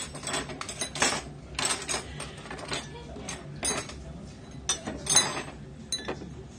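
Metal tongs and utensils clinking and scraping against stainless steel bowls and dishes: a string of sharp clinks, the loudest about five seconds in.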